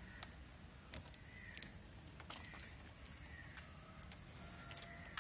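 A few faint, sharp clicks as the plastic wiring couplers for the lights at the front of a Honda Activa scooter are worked loose by hand.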